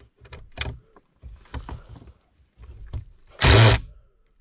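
Cordless impact driver driving a screw into wood, run in short stop-start pulses with clicks, then a loud half-second burst about three and a half seconds in as the screw goes home.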